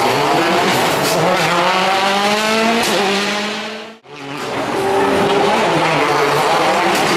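Citroën DS3 WRC rally cars' turbocharged four-cylinder engines accelerating hard, the engine note climbing in pitch through the gears. The sound dips out about four seconds in and comes back as a second car accelerates the same way.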